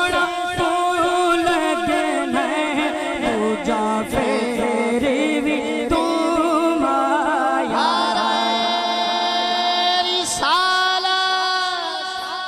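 Punjabi naat (devotional song in praise of the Prophet) sung in long, drawn-out notes that waver and step up in pitch twice in the second half, over a steady beat in the first few seconds.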